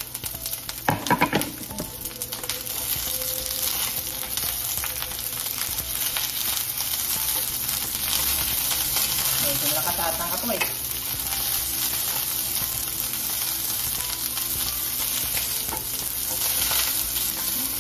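Sliced onions sizzling in olive oil in a stainless steel frying pan, stirred with a wooden spatula. The sizzle is a steady hiss that grows louder over the first few seconds, with a few sharp knocks about a second in.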